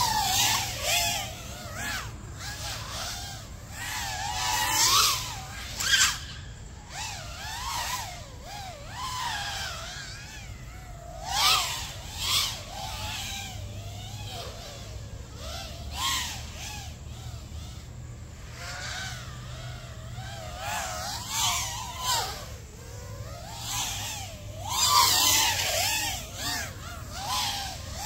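Five33 Light Switch v2 FPV racing quadcopter, with 2207 2070kv brushless motors on a 6S battery, flying laps of a race course: the motor whine rises and falls in pitch with the throttle. It swells sharply for a moment several times as the quad sweeps past close by.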